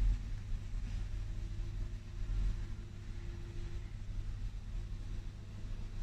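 Steady low rumble of airport terminal background noise heard through the windows, with a faint held hum in the middle.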